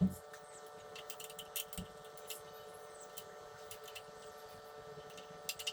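Hand tools handled on the front fork of a motorcycle: a dull knock at the start, then scattered light clicks and taps of metal, over a steady electrical hum.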